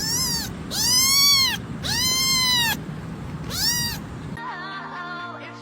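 A cat meowing four times, each call rising and then falling in pitch: a short one, two longer drawn-out ones, then another short one. Music comes in near the end.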